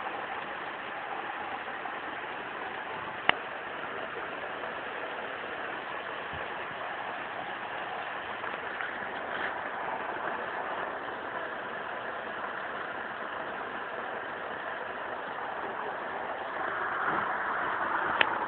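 Heavy rain falling with a steady hiss that swells slightly near the end. A sharp click sounds about three seconds in and again just before the end.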